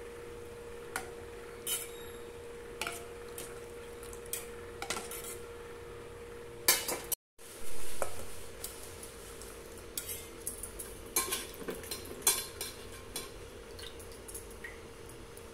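Steel ladle stirring split moong dal in a stainless steel pot of boiling water, clinking and scraping against the pot's sides in irregular taps, over a steady hum.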